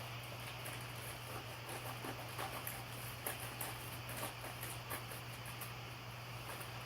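Plastic mailer bag and packaging rustling and crinkling as it is opened by hand: an irregular run of small scratchy crackles over a steady low hum.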